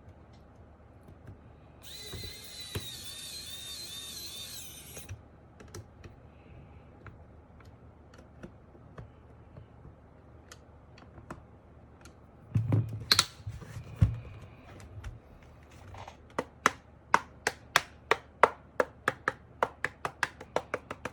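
Typing on an MK870 mechanical keyboard: scattered key clicks, a few heavier knocks around the middle, then steady keystrokes about two to three a second near the end. Partly foamed but without case-bottom foam, the board still sounds hollow, with a clacky 'lẹp bẹp' from underneath. About two seconds in, a hissy noise runs for some three seconds.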